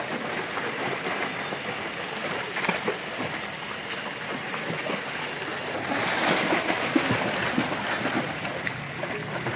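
Pool water splashing and churning from a swimmer's flutter kicks and arm strokes, growing louder about six seconds in.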